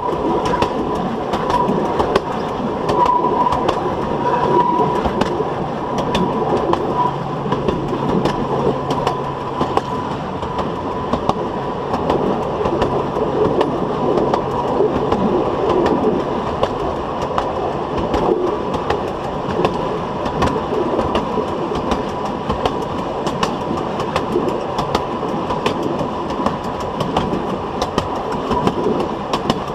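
Steel wheelset of a 760 mm narrow gauge railway coach rolling over the track at speed: a steady rumble with clicks as the wheels cross the rail joints. A faint steady whine runs over it.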